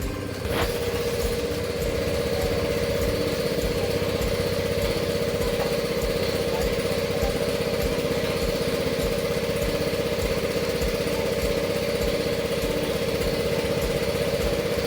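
An electric hydraulic power unit of a car lift, its motor-driven pump starting with a click about half a second in and then running with a steady hum.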